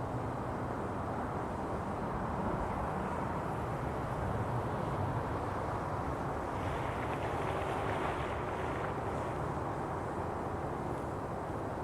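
Steady rumble of road traffic with wind buffeting the microphone.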